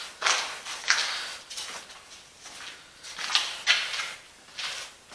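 Footsteps crunching and scuffing at a walking pace, a sharp noisy step roughly every two-thirds of a second.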